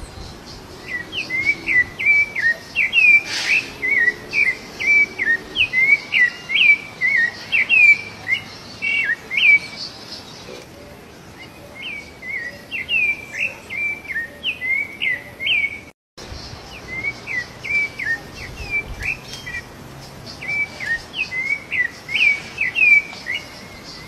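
Rufous-bellied thrush (sabiá-laranjeira) singing: three phrases of quick, clear whistled notes with short pauses between them.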